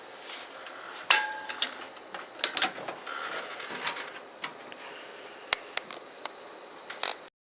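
Sharp clicks and clinks of a computer case fan and its screws being handled and fitted against a metal PC case. One knock about a second in rings briefly.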